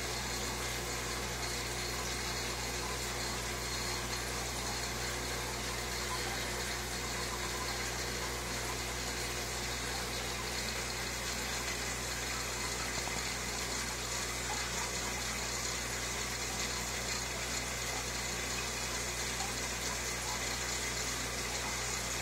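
Aquarium filtration running steadily: a low pump hum with a constant rush of bubbling water.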